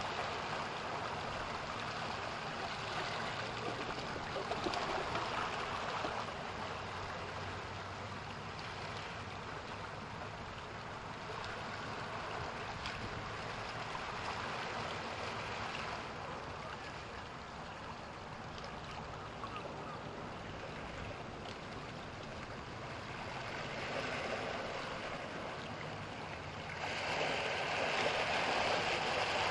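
Ocean waves surging and washing in a continuous rush, swelling louder about five seconds in, again shortly before the end, and loudest in the last few seconds.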